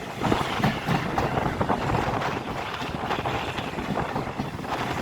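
Steam-hauled passenger train running along the track: steady wheel and rail noise with irregular knocks, and wind buffeting the microphone.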